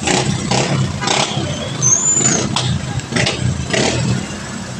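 Passing road traffic on a wet road: a steady low engine rumble with repeated short swells of tyre noise as vehicles go by, and a brief high squeal about two seconds in.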